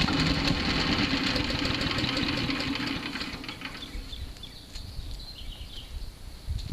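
Gas engine of a Powerhorse wood chipper-shredder running, then dying away about three to four seconds in.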